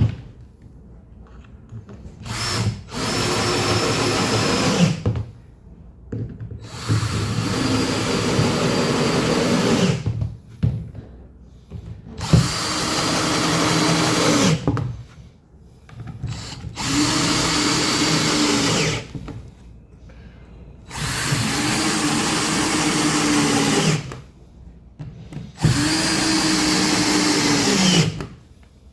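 Power drill run in about seven short bursts of two to three seconds each with pauses between, the motor's pitch dropping away as each burst stops.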